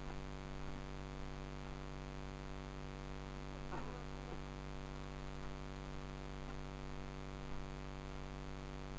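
Steady electrical hum made of many even, unchanging tones, with a faint brief sound about four seconds in.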